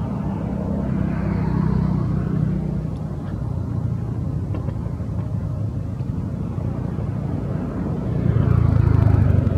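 Low, steady engine hum of a motor vehicle, louder for a second or two near the end.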